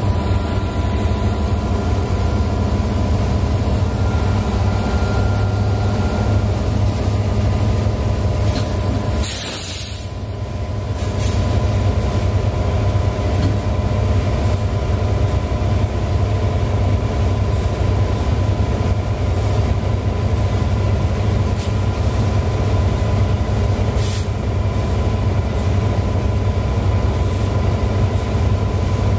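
EMD SD70ACe and SD70MAC diesel locomotives, 16-cylinder two-stroke EMD 710 engines, working hard while the train barely moves: a loud, steady engine drone with a thin steady whine. The train is stalling on the grade and starting to slip its wheels. There is a brief break in the sound about nine seconds in.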